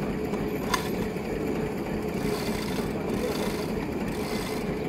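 Two-man long saw (pit saw) cutting a log lengthwise: three long rasping strokes through the wood, about a second apart, in the second half, after a single sharp click less than a second in.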